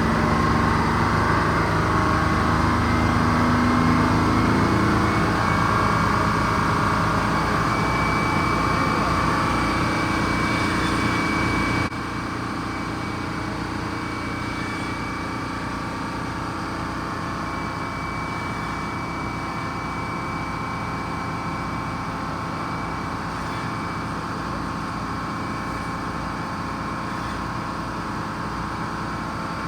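Sawmill driven by an old bus engine, running steadily with a thin high whine over the engine. The sound drops suddenly a little under halfway through and runs on quieter.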